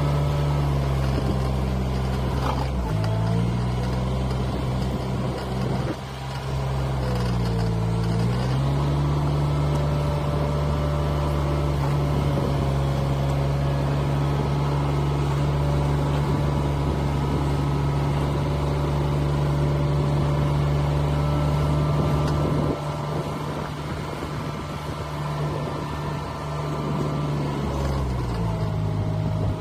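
Engine of a small wheeled manure scraper running steadily while it pushes slurry along a concrete alley. Its pitch dips briefly and recovers about 3 seconds in, again about 8 seconds in and once more near the end, and it gets a little quieter about two-thirds of the way through.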